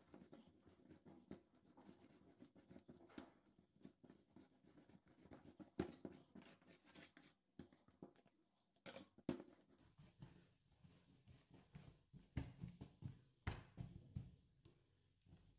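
Faint handling sounds of soft brioche dough being kneaded by hand on a wooden tabletop: irregular soft thuds and rubbing, with a few louder knocks.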